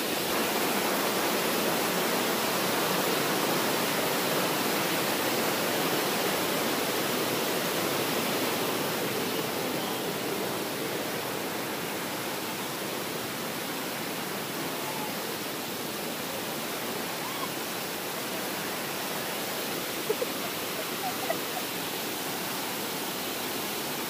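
Waterfall rushing steadily, a constant hiss of falling water, slightly louder in the first third. A few faint taps sound about twenty seconds in.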